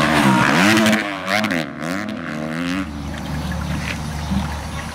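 Motocross dirt bike engines revving, their pitch rising and falling through the revs as the bikes climb past. About three seconds in they fade to a quieter steady low hum.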